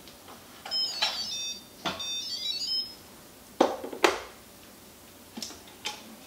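Instant Pot electric pressure cooker lid being twisted open on its stainless steel rim: two short bursts of high metallic squeaking and scraping, then two sharp clunks as the lid comes off and is handled, and two lighter knocks near the end.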